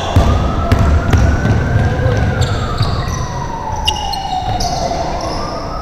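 A siren wails slowly: it rises for about two seconds, falls for about three, and starts rising again near the end. Under it are basketball thuds on the court, heaviest in the first two seconds, and brief high squeaks.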